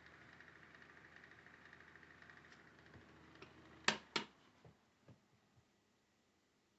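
Windmere 9-inch table fan running on high with a faint steady whir and low hum. About four seconds in come two sharp clicks of its plastic push buttons, the hum stops, and a few faint ticks follow.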